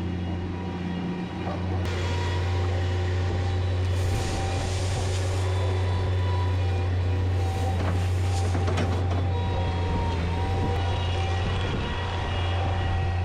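An engine-driven machine running steadily with a deep, even hum, with a few light knocks in the middle.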